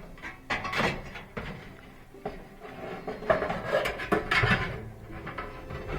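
Sheet-metal heating element housing of a Samsung electric dryer being fed into place, scraping and clanking irregularly against the dryer's metal frame.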